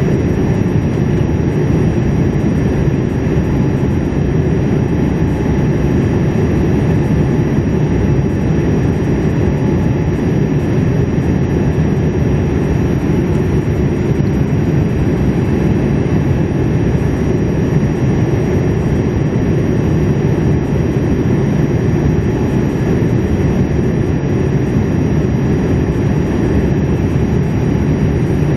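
Steady cabin noise inside a Boeing 787-8 on descent toward landing, heard from a window seat beside its Rolls-Royce Trent 1000 engine. An even, loud rumble of engine and rushing air, with faint steady high tones.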